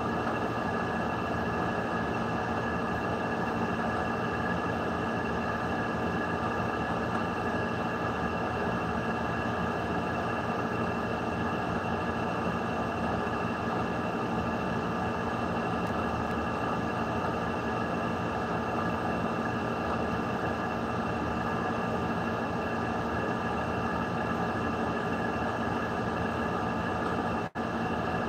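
A steady droning hum with several held tones over an even noise, unchanging throughout; it cuts out for an instant near the end.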